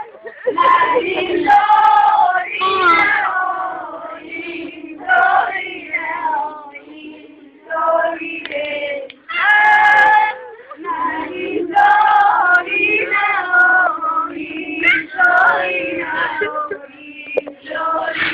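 A group of women singing an unaccompanied mourning lament, in phrases of long held notes with short breaks between them.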